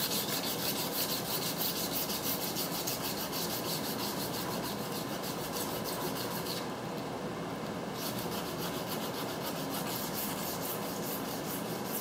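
Sandpaper rubbed by hand over a steel trailer wheel rim in quick, even back-and-forth strokes, scratching off rust stains and old paint before repainting. The strokes stop for about a second and a half a little past halfway, then resume.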